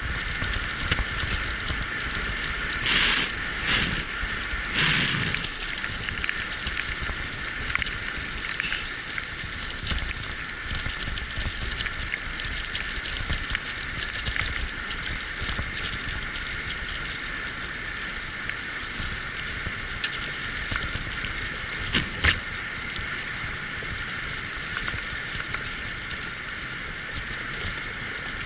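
Wheeled dog-racing rig rolling along a forest track behind a six-dog team, rattling steadily, with a few louder knocks as it goes over bumps, the loudest about 22 seconds in.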